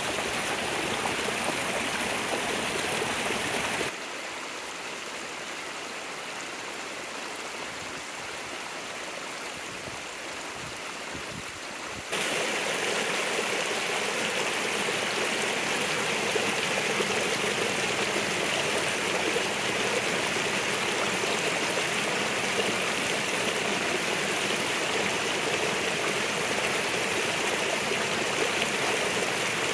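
Small mountain creek running high after rain, a steady rush of water splashing down over rocks. The rush drops quieter about four seconds in, then comes back louder around twelve seconds in, where the water pours down a small cascade between boulders.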